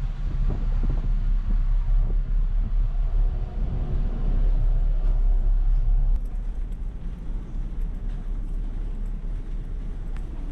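Steady low rumble of a large car ferry under way, its engines and hull droning. It drops to a quieter level about six seconds in.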